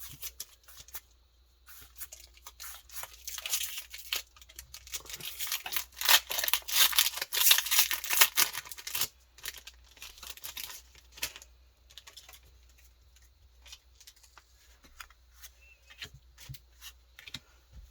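Foil Pokémon booster pack being torn open, a dense crackling rip that is loudest in the middle, followed by scattered light clicks of cards being handled and flicked through.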